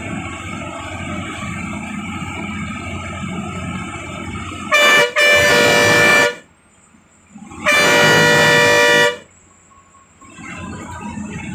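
Bus horn, heard from inside the bus: a brief toot, then a blast of about a second, a pause, and a second, slightly longer blast. Before the horn there is steady engine and road noise.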